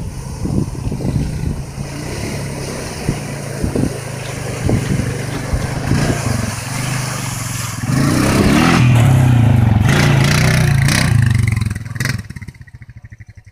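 Quad bike (ATV) engine running as it drives through shallow river water, with water splashing under the wheels. The engine grows louder and revs from about two-thirds of the way in as the quad climbs out onto the sand, then fades out near the end.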